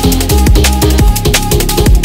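Background electronic music with a fast, busy drum beat over a heavy bass line.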